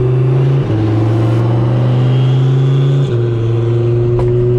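Twin-turbo Ford Mustang Shelby GT350's 5.2-litre V8 pulling hard at full throttle, heard from inside the cabin. The engine note climbs steadily and drops twice on quick upshifts of the manual gearbox, about two-thirds of a second in and about three seconds in.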